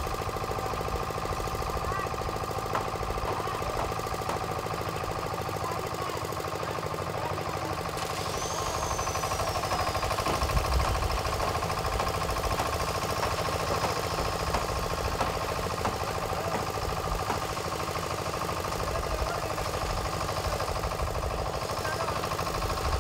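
Small diesel engine of a drum cement mixer running steadily at a constant speed. A few short knocks from shovels working the concrete mix in a steel wheelbarrow come about halfway through.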